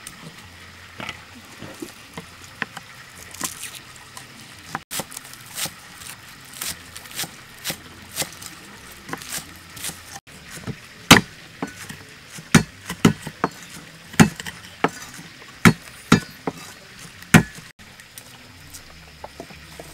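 Cleaver chopping spring onions on a wooden chopping block: a string of irregular knocks of the blade on the wood, louder from about halfway through.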